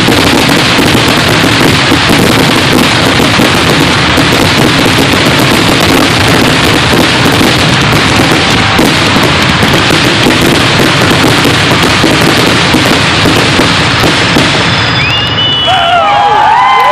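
Aerial fireworks finale: a loud, unbroken barrage of shells bursting and crackling in rapid succession. Near the end the barrage eases and crowd cheering and whistling start.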